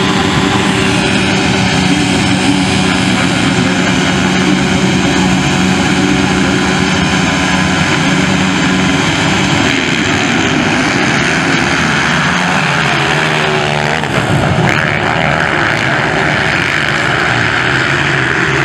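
A pack of 230 cc motocross bikes revving together at the start line, their engines rising and falling in pitch. About fourteen seconds in, the sound shifts as the field accelerates away from the start.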